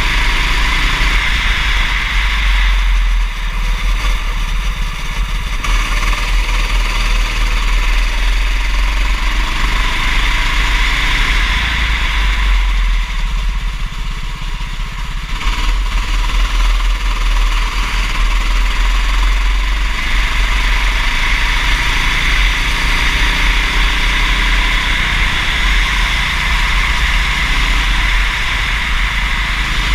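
Kart engine running under racing load, its pitch rising and falling as it accelerates and eases off, with two longer lifts about 3 and 13 seconds in, over a heavy low rumble.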